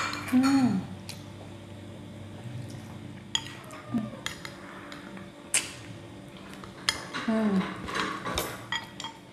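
Chopsticks and spoons clinking and scraping against ceramic bowls during a noodle meal. A few short meows from a cat come in between: about half a second in, once around four seconds, and again near the end.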